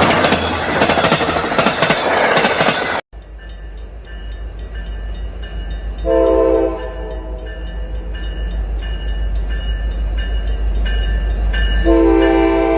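Freight train running past with a loud rumble and rail noise. After an abrupt cut, a low rumble with wheels clicking in a steady rhythm, a short blast of the train's chord horn about six seconds in, and a long horn blast starting near the end.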